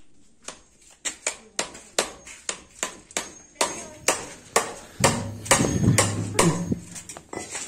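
A hammer nailing wooden formwork boards: quick, repeated sharp blows on nails and planks, about two to three a second, starting about a second in.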